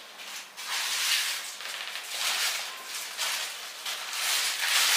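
Rustling and crinkling of a plastic-wrapped parcel being handled and opened to take out a garment, in irregular hissy bursts.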